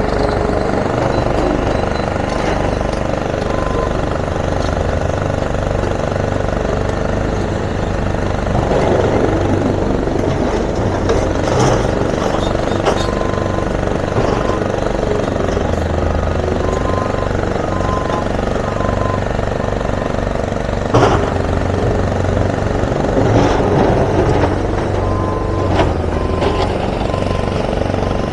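Heavy diesel demolition machinery, excavators and a rock crusher, running steadily, with a high beeping alarm repeating in runs and sharp clanks about 21, 23 and 26 seconds in.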